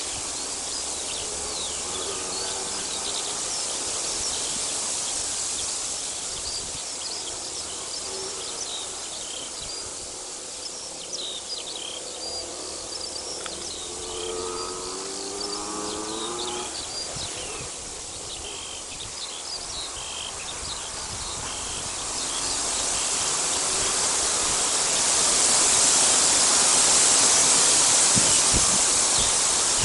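Outdoor spring ambience: small songbirds chirping and twittering throughout, with a lower pitched call from another animal heard twice. Over the last third a rushing noise swells and becomes the loudest sound.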